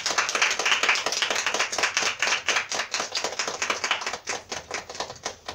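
A small audience clapping. The claps are dense at first, thin out toward the end and stop about five seconds in.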